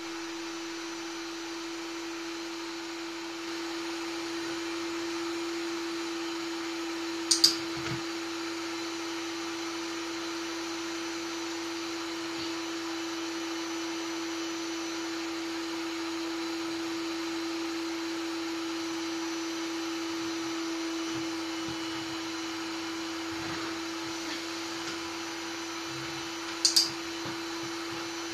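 Canister vacuum cleaner running steadily with a constant motor hum and airflow hiss. Twice, about 7 seconds in and again near the end, a brief sharp double click rises above it.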